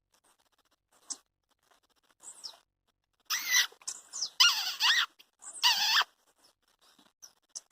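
A wild bird singing: a couple of faint chirps, then about three seconds in a loud run of wavering, warbled phrases lasting nearly three seconds.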